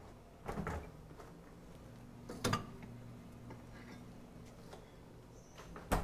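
Refrigerator door being opened and shut: a few faint knocks, a sharper click about two and a half seconds in and another near the end, with a low steady hum in between.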